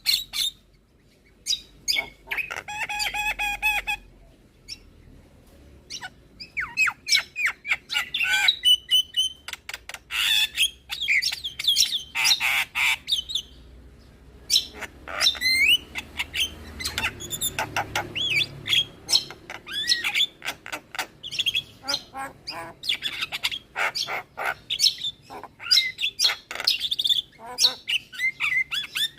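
Javan myna (jalak kebo) singing a varied, chattering song of rapid chirps, whistles and harsh squawks, in bursts with short pauses.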